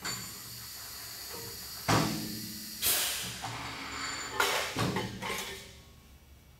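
12-ton air-powered press brake cycling to bend sheet metal. A steady hiss of compressed air starts suddenly, with two loud clunks about two and three seconds in. More clatter and hissing follow around four to five seconds in, then the sound dies away.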